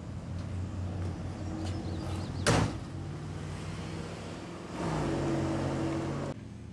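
Car door of an International Harvester Scout slamming shut once, about two and a half seconds in, over a steady low engine hum. Near the end a louder hum joins for about a second and a half, then cuts off suddenly.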